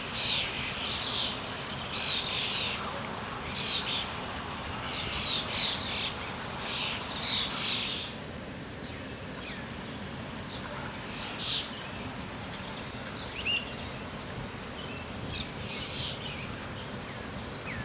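Small birds chirping over a steady background hiss: quick bursts of high chirps come close together for the first half, then thin out to scattered calls.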